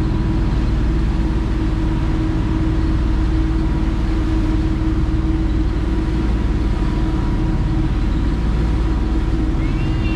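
Sea Ray Sundancer 370 motor yacht's engines running steadily under way: a constant low drone with an even hum that does not change.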